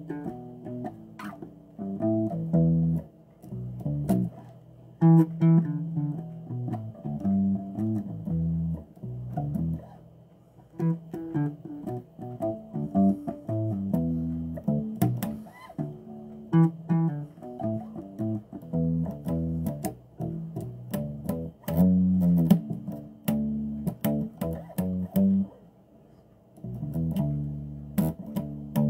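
Bass guitar played solo: a continuous run of plucked notes in a loose groove, with sharp string clicks between them and a short pause a few seconds before the end.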